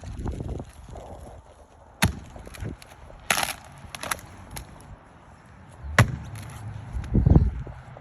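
Axe blows striking a wooden tree stump: a few separate sharp chops, the loudest about two seconds in and about six seconds in, with a rougher, longer crack just after the first.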